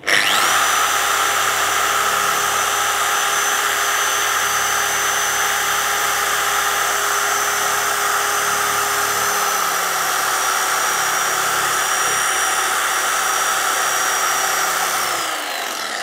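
Electric dual-action car polisher with a microfiber cutting pad running on a tail light lens: it starts abruptly, runs with a steady whine, and winds down in pitch near the end.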